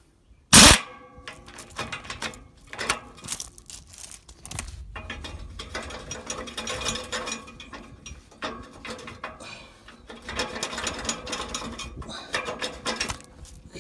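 Metal tools working on a John Deere 535 baler's pickup: a loud metallic clang about half a second in, then a long run of irregular metal clicks and rattles, like a ratchet and parts being handled.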